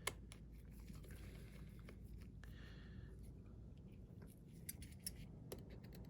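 Faint scattered clicks and light scratches of small repair tools working inside an opened iPhone 7, while the battery connector is being disconnected, over a steady low hum.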